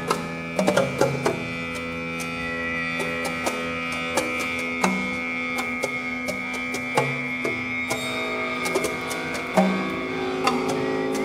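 Experimental live instrumental music: several held tones make a steady drone, with sharp, irregular percussive strikes and short low notes scattered over it.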